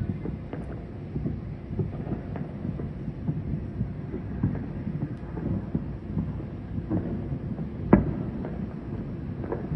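Distant New Year's fireworks going off across the city: a continuous low rumble of many overlapping bangs and booms, with one louder bang near the end.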